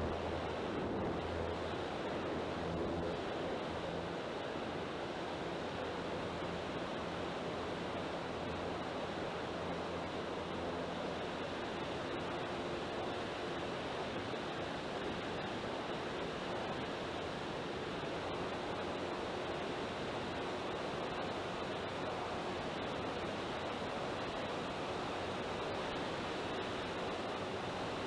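Steady rushing wind noise over the onboard camera's microphone on a flying RC model airplane. A faint, steady hum from the electric motor and propeller runs underneath, a little stronger in the first few seconds.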